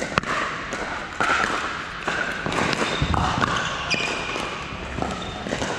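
Pickleball rally: paddles striking a plastic pickleball, a string of sharp pops a fraction of a second to a second apart.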